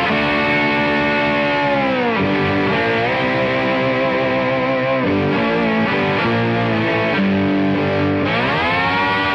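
Blues-rock band music led by a distorted electric guitar through effects, playing long sustained notes that bend and slide in pitch, with no singing.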